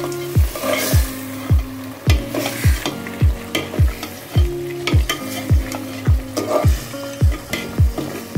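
Background music with a steady electronic kick-drum beat, about two beats a second, over held synth notes. Underneath, a spoon stirs chicken pieces in a pot of spiced liquid.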